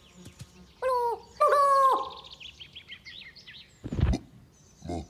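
Two short wordless cartoon-character calls, each falling in pitch and then holding, over faint birdsong chirps; a soft low thump about four seconds in and a smaller one just before the end.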